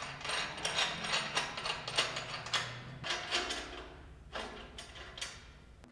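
Quick runs of ratchet clicks, a hand wrench being worked while the fuel tank is bolted back up under the truck chassis. The clicking fades after about four seconds, then comes twice more briefly.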